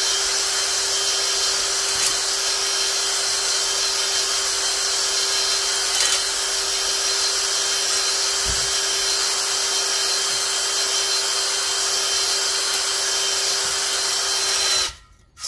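Electric drill spinning a spring-loaded cylinder hone up and down inside a cylinder bore of a 350 Chevy V8 block, lubricated with WD-40, taking the shine off the bore. A steady whine and hiss that stops abruptly near the end.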